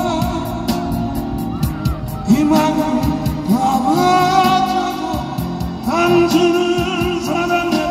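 A man singing a Korean ballad into a microphone, with several long held notes, accompanying himself on a strummed acoustic guitar.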